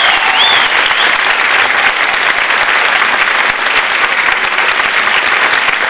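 Audience applauding: a full, steady round of clapping from a large crowd.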